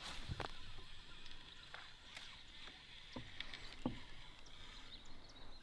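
Light, scattered knocks and taps in a canoe while a fishing rod is handled, about five in all, the loudest near the start. A faint steady high-pitched hum sits behind them.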